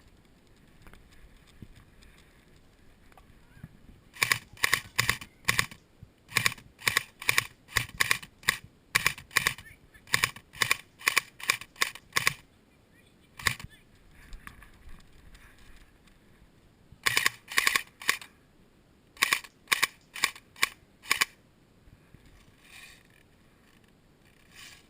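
Airsoft guns firing in strings of sharp shots, several a second, with pauses between strings and a lone shot in between.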